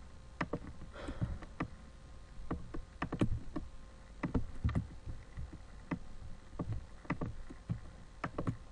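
Computer mouse clicking at irregular intervals, a dozen or so sharp clicks, over a low background rumble.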